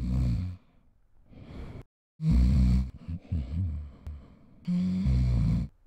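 A man snoring loudly in his sleep: three big snores about two and a half seconds apart, with quieter breathing between.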